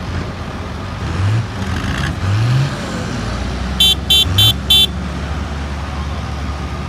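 Tractor engines running in a steady low rumble, one revving up twice. About four seconds in, a horn beeps four times in quick succession.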